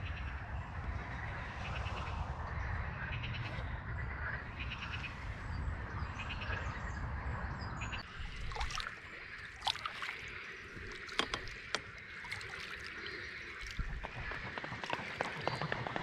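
A chorus of frogs calling in short pulsed croaks, heard over the open water. For the first half, wind rumbles on the microphone. After that, sharp clicks stand out, and denser rapid croaking comes in near the end.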